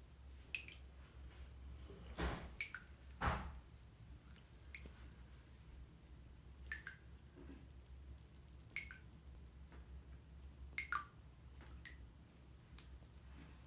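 Water drips plinking into a filled bathtub, one every second or two, with two louder splashes about two and three seconds in, as an orange bath bomb goes in and dissolves.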